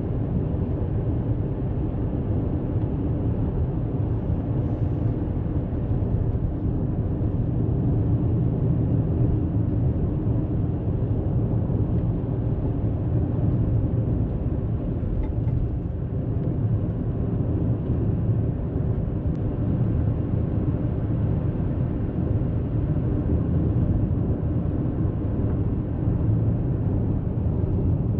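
Steady low rumble of a vehicle driving along a road, engine and tyre noise heard from inside the moving vehicle.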